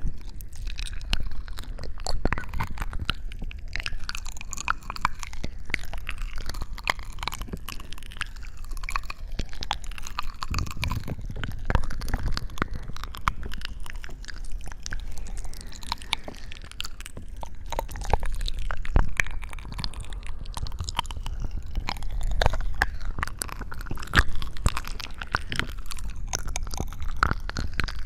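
Close-miked ASMR sounds: a continuous, irregular stream of small crackles and squishes over a low rumble.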